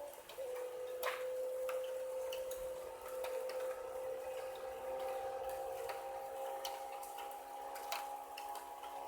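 Rain starting to fall: scattered drops tick and drip irregularly on hard surfaces, over a steady tone that drifts slightly in pitch.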